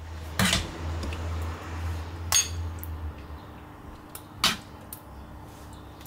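Tableware clinking at a meal: a few separate light knocks of utensils against dishes, spaced a second or two apart.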